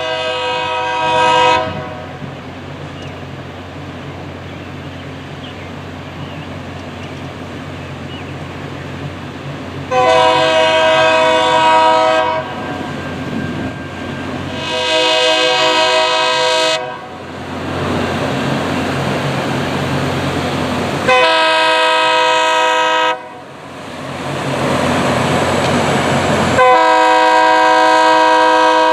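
Locomotive horn on an F40PH sounding a chord of several tones in repeated blasts of about two seconds: one as things begin, then four more about ten, fifteen, twenty-one and twenty-seven seconds in. Between blasts a steady train rumble swells louder twice as the train draws near.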